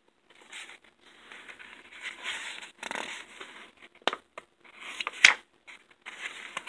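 Fingers rustling and sliding on a paper book page as it is grasped to be turned, with two sharp clicks of the paper about four and five seconds in.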